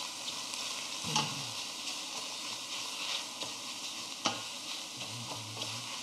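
Raw ground pork sizzling in a very hot stainless steel pot as it is stirred and broken up with a wooden spoon, a steady hiss of fat frying. The spoon knocks sharply against the pot twice, about a second in and just past four seconds.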